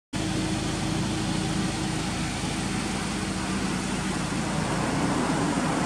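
Honda Accord Euro R's K20A four-cylinder engine idling steadily, with a steady hiss over it.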